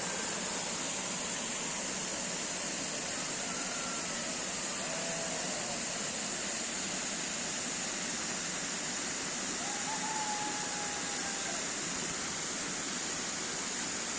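Water fountain splashing and running steadily, with a few faint thin whistles over it.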